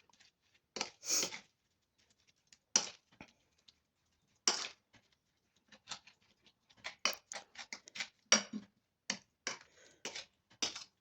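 Stirring a wet mixture of grated turnip and onion with sugar and olive oil: short, soft scrapes and clicks, sparse at first and coming more often from about seven seconds in.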